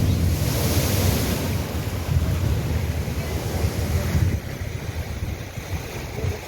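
Cyclone-force wind buffeting the microphone in heavy gusts over the wash of rough sea surf; the gusts ease a little about four seconds in.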